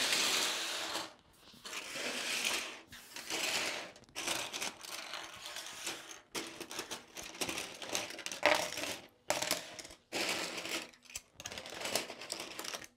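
Plastic LEGO bricks clattering as handfuls are swept and sorted across a hard desktop, in short bursts that start and stop abruptly.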